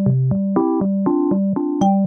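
Background music: a light keyboard tune of short notes in a steady rhythm, about four a second, with a few high chime-like notes near the end.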